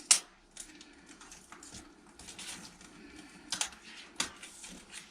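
Small sharp clicks and handling noises of hard plastic and metal parts as an LED strip is fitted into a monitor's backlight lamp holder, with a loud click at the start and two more about three and a half and four seconds in.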